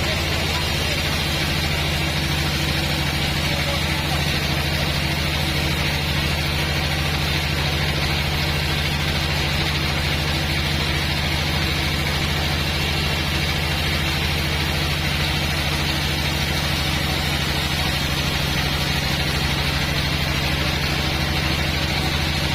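Sawmill bandsaw machine running steadily: a constant low engine drone with a hiss over it.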